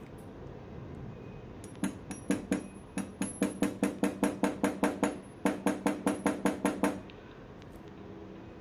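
Light metal-on-metal hammer taps, rapid at about six a second with a faint high ring and a short break about five seconds in: an oil-pump spindle key being gently tapped into place on a Royal Enfield AVL engine's oil pump.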